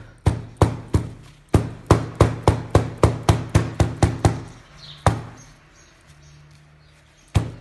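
Wooden-handled meat tenderizer mallet with a studded metal head pounding on kitchen paper over fresh flowers on a table: a run of sharp knocks about three a second, a single strike, a pause of about two seconds, then the knocks start again near the end.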